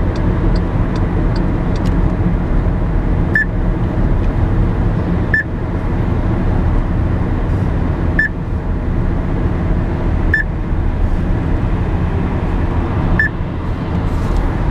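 Steady road and engine noise of a car driving at speed on a dual carriageway, heard from inside the car. Fast light ticking for the first couple of seconds, then five short high beeps two to three seconds apart.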